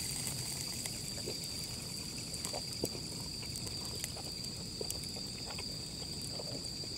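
Night insects trilling steadily and high-pitched, with a few faint clicks scattered through.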